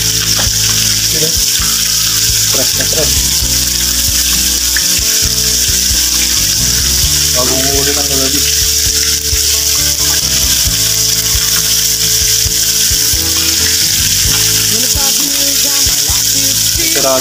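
Mackerel frying in oil and sauce in a pan, a steady sizzle.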